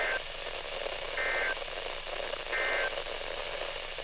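Three short bursts of NOAA Weather Radio SAME data tones, the two-tone digital end-of-message code that closes an Emergency Alert System warning, about a second and a quarter apart over steady radio static hiss.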